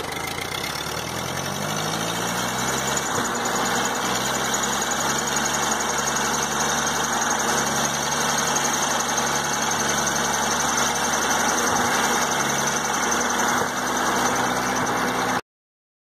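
1952 Ford 8N tractor's four-cylinder flathead gasoline engine running under way, picking up speed over the first few seconds and then holding a steady pace. It cuts off suddenly near the end.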